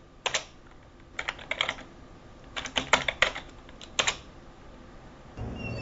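Typing on a laptop keyboard: quick keystroke clicks in short bursts with pauses between. Near the end a steady background noise comes in.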